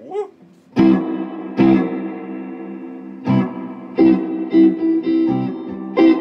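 Electric guitar played through a Fender Deluxe Reverb tube amp running on a fresh set of Ruby power tubes, with heavy reverb on. A bent note comes right at the start, then chords are struck about once a second and left to ring.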